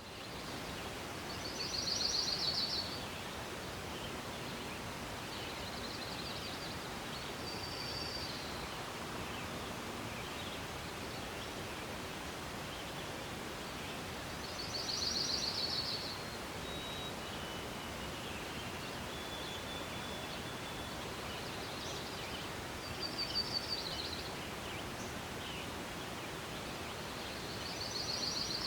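Forest ambience: a steady hiss of gentle wind and rustling leaves, with a songbird singing a short, rapid, high trilled phrase every several seconds, about five times.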